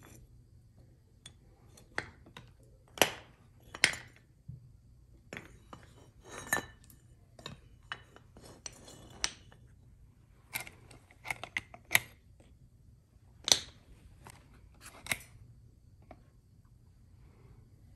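Cast aluminum ingots and a steel ingot mold being handled with tongs, set down and stacked: about ten separate sharp metallic clinks and knocks, metal on metal and metal on brick.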